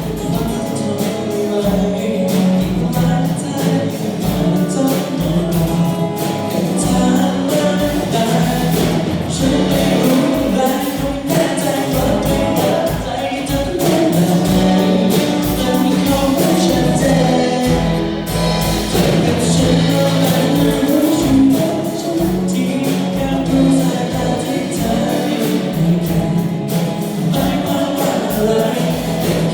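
A band playing a song with sung vocals over a steady beat.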